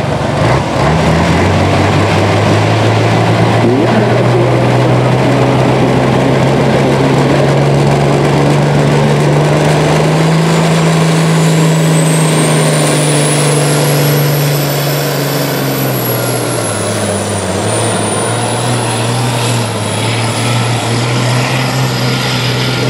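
Diesel pulling truck running at full throttle while dragging a weight sled down the pulling track. A high whistle rises and holds through the second half, and the engine note sinks about two-thirds of the way through as the truck bogs under the load.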